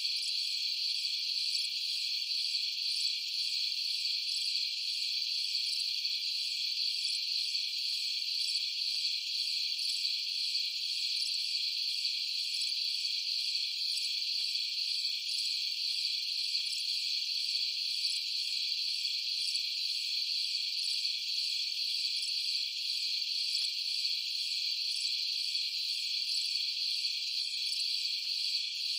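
Steady, high-pitched insect chorus that does not change, with no other sound heard.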